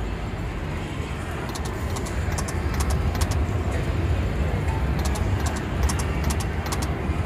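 Video slot machine reels spinning: a steady noisy whir with scattered sharp high clicks, in place of the game's music.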